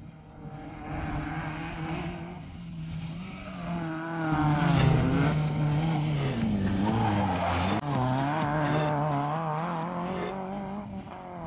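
Small rally hatchback's engine revving hard through a tarmac bend, its pitch rising and falling with throttle and gear changes, with tyre squeal. A sudden click and brief dropout a little past the middle.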